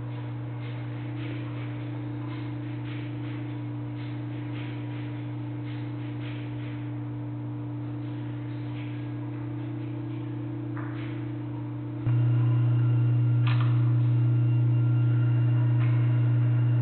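A steady low hum with a fainter, higher hum above it and scattered faint ticks. About twelve seconds in, the low hum steps abruptly louder and holds there.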